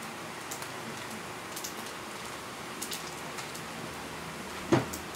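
Meat, onions and garlic sizzling and crackling steadily in a dark soy sauce in a wok over a gas burner. A single short knock comes about four and a half seconds in.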